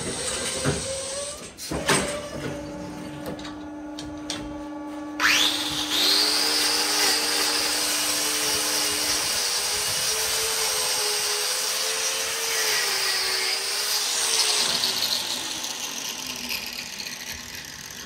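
An electric angle grinder with a hoof-trimming disc spins up about five seconds in with a rising whine and runs steadily against a cow's hoof horn, then winds down near the end. Before it starts there are a few knocks and a steady hum.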